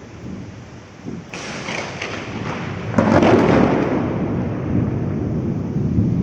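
Thunder during a heavy rainstorm: a crackling onset about a second in, then a loud clap about three seconds in that rolls on as low rumbling over the steady hiss of rain.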